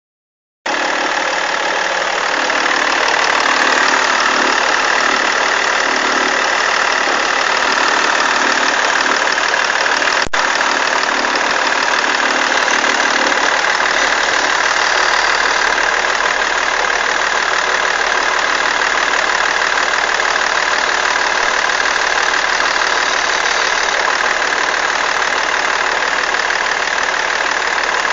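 BMW E46 330d straight-six diesel engine idling steadily, with noise from a bad alternator belt tensioner. A single sharp click about ten seconds in.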